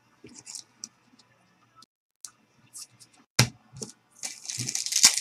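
Trading cards being handled and flipped through: scattered light clicks and taps, a sharper knock about three and a half seconds in, then rustling of cards and packaging near the end.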